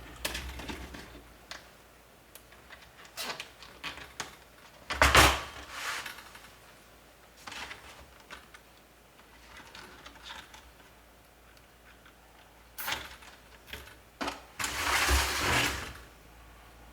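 Nylon zip ties being pulled through and tightened on the latches of a plastic pet carrier: several short rasping zips, the loudest about five seconds in, and a longer zip of about a second and a half near the end.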